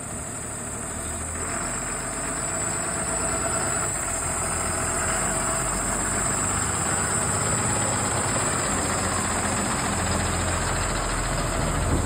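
Blue Bird school bus engine idling steadily, growing slowly louder.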